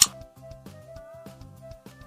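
Background music with a steady beat and held melody notes, opening with a single sharp click.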